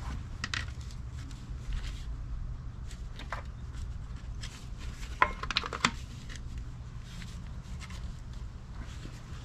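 A strip of PVC being handled and wrapped around a steel axle tube: scattered light clicks and rubbing of plastic on metal, with a short cluster of sharper clicks a little past halfway, over a steady low rumble.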